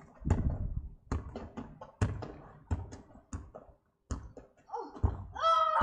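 A football thudding again and again as it is kicked and bounces on tarmac, about seven thuds roughly a second apart. Just before the end a voice calls out, rising in pitch.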